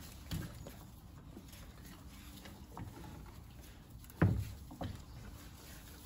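Dalmatian puppies moving about on grass and straw, faint rustling and patter, with a short sharp sound that drops quickly in pitch about four seconds in and a smaller one just after.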